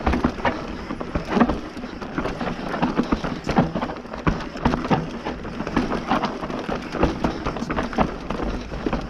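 Hardtail mountain bike (Bird Zero AM) riding down a dry, dusty trail: tyres crunching over dirt and stones, with frequent knocks and rattles from the unsuspended frame, over a constant low rumble.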